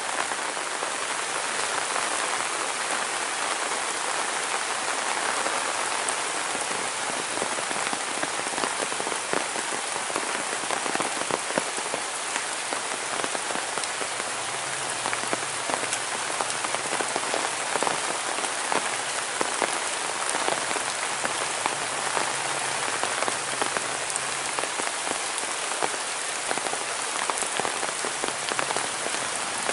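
Steady rain falling on foliage and a wet paved path, with many close individual drips standing out over the even hiss of the downpour.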